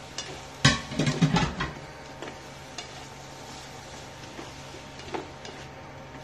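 Spatula knocking and scraping against a nonstick wok as stir-fried vegetables are tossed, over a light, steady sizzle. The loudest clatter comes about a second in, followed by a few single taps.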